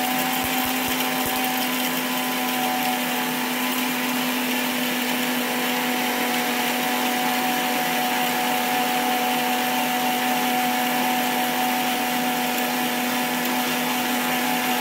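Preethi Zodiac mixer grinder running steadily at speed, with a constant motor whine over the whirr of the blades grinding sautéed greens, coconut and spices with curd into a wet paste in its steel jar.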